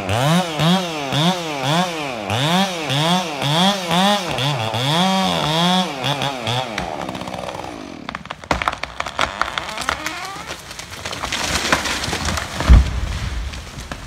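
Chainsaw cutting through the trunk of a large tree, its engine speed rising and falling about twice a second, then dropping away after about six seconds. Wood then cracks in scattered snaps, a rush of branches builds, and a heavy thud comes near the end as the felled tree hits the ground.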